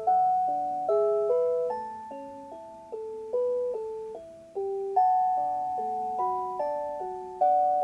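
Electronic chime melody in a glockenspiel-like tone, with two or three notes sounding together in harmony. Each note is struck and then fades, and a new note comes about every half second. It is a recreation of a Japanese municipal disaster-prevention radio chime.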